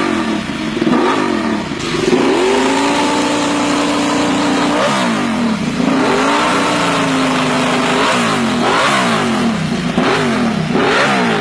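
Ducati Desmosedici RR's V4 engine revving: repeated quick blips that rise and fall in pitch. The revs are held steady twice for a second or two.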